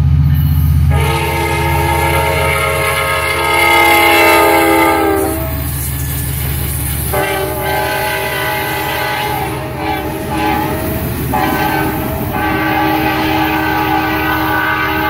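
A passenger train's diesel locomotive sounds its multi-chime air horn in three long blasts as it passes close by at speed, over the low rumble of the engine and the rolling coaches.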